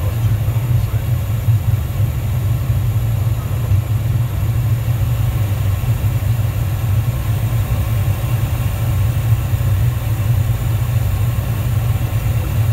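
Flight-deck noise of a Dassault Falcon 7X business jet on final approach: a steady, heavy low rumble with a faint hiss above it.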